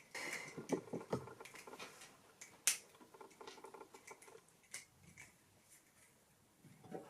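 Small clicks and light crackling of fingers prying open a Hatchimals CollEGGtibles toy egg shell, with one sharper click a little under three seconds in.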